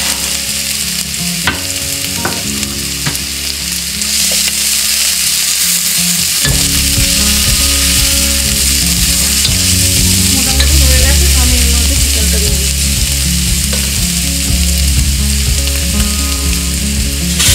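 Chopped onions, garlic and ginger paste sizzling in hot avocado oil in a nonstick pot, stirred with a wooden spatula that clicks against the pan a few times early on.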